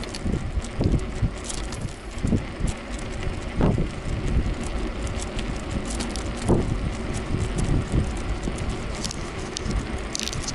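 Riding bicycle: steady wind noise on the microphone and road rumble, with occasional knocks and rattles from the bike's wire-domed cat basket.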